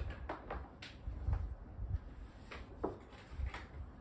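Handling noise while guitar cables are plugged into small battery practice amps and the amps are set up: a few sharp clicks and dull low thumps, spread unevenly.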